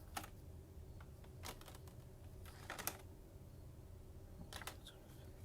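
Plastic card top loaders being handled: a few faint, scattered clicks and rustles, roughly four separate bursts.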